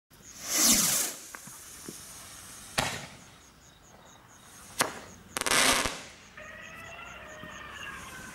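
Firework rockets launching and bursting: a rushing whoosh at lift-off within the first second, sharp bangs about three and five seconds in, a second whoosh soon after, and another sharp bang at the very end.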